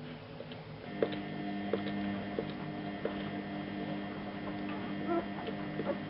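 A steady electrical-sounding hum with several tones comes on about a second in. Under it, soft ticks repeat about every two-thirds of a second.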